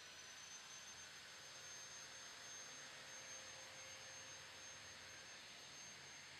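Near silence: faint hiss with a thin, steady high-pitched whine.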